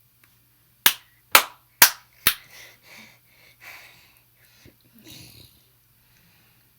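Four sharp smacks about half a second apart, followed by a few seconds of faint, soft rustling sounds.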